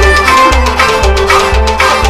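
Kashmiri Sufi folk music played by a small ensemble: a steady low drum beat about twice a second under held melody notes and sharp percussive strikes.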